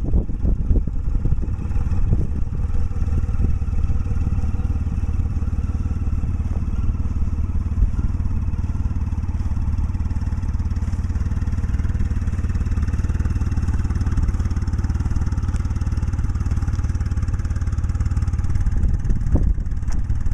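Honda GL1500 Gold Wing's flat-six engine idling steadily through Harley-Davidson mufflers.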